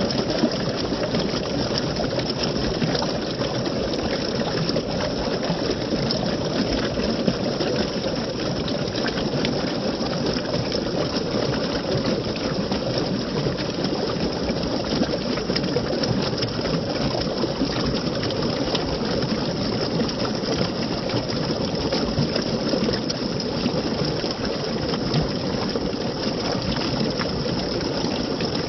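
Running water rushing steadily, as from a waterfall or fast stream.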